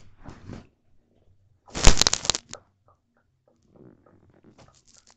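A loud rustling scuffle lasting under a second, about two seconds in, then faint scattered taps and rustles of small plastic pony toys being handled on a bedspread.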